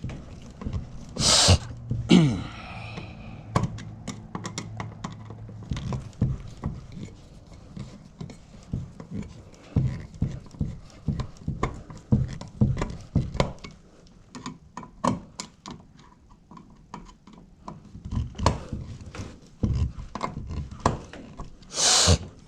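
Irregular light clicks and knocks of hand work at an electrical junction box, with a steady low hum for the first few seconds and two short loud bursts of noise, one about a second in and one near the end.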